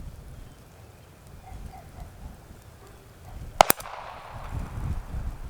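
A distant .22 pistol shot from a Ruger Mark IV, heard from about 155 yards downrange: a sharp double crack about three and a half seconds in. Wind buffets the microphone with a low rumble throughout.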